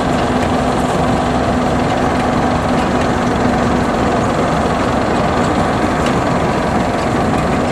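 Small Vietnamese-built rice combine harvester running steadily as it works through the paddy, its engine and machinery giving a continuous drone with a low hum that fades out about halfway through.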